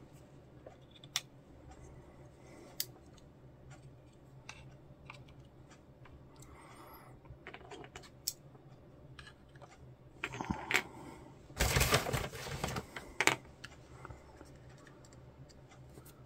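Spring clamps and plastic model parts being handled on a workbench while the glued wing halves are clamped: scattered light clicks and ticks, with a longer run of scraping and rustling about ten to thirteen seconds in.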